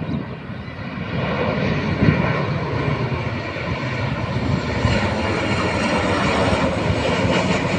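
Airplane engines running loud as a plane comes in to land, the noise building about a second in and then holding steady.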